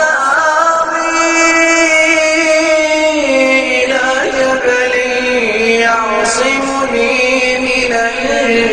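Quran recitation: one reciter's voice chanting in melodic tajweed style. It holds long drawn-out notes that slowly waver and step down in pitch, and a new phrase begins about six seconds in.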